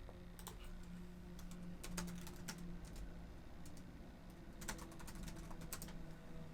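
Faint, irregular computer keyboard keystrokes and clicks coming in small clusters, over a low steady hum.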